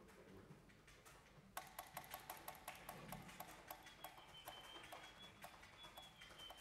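Quiet passage of contemporary chamber music: a rapid, uneven series of sharp, dry taps starts about a second and a half in, and near the four-second mark a thin, very high held tone joins them and slowly sinks in pitch.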